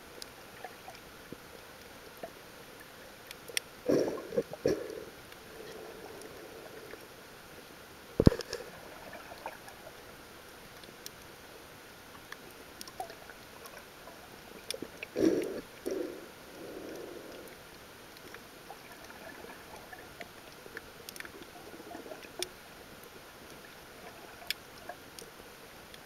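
Underwater sound picked up through a camera housing: a steady faint hiss with scattered sharp clicks, gurgling bursts about 4 seconds and 15 seconds in, and one sharp knock about 8 seconds in.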